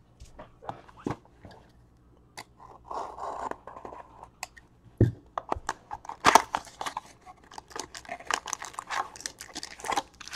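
A 2017 Topps Gold Label cardboard box of trading cards being torn open and its packs pulled out: crackling wrapper and tearing cardboard, with many sharp clicks and rustles, loudest about six seconds in.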